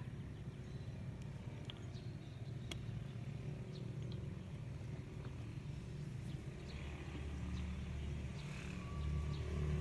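Wind buffeting the microphone as a low, uneven rumble that swells about seven seconds in and again near the end, with a few faint clicks from a plastic honey jar being handled.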